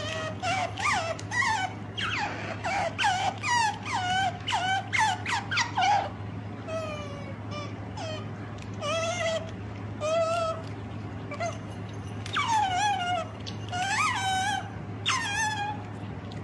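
Otter squeaking in a string of short, high-pitched calls, many of them falling in pitch. The calls come thick and fast for about six seconds, then more sparsely, with another flurry a few seconds before the end. A steady low hum runs underneath.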